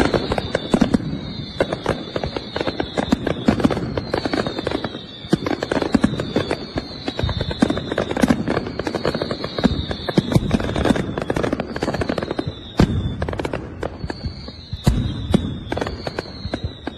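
Fireworks going off in a dense barrage of bangs and crackles. A high tone falling in pitch repeats about every second and a half.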